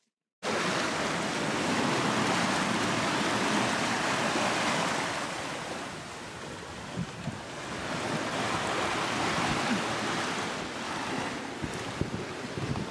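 Sea water rushing and splashing past the hull of a sailing catamaran under way, with wind buffeting the microphone. It starts suddenly about half a second in.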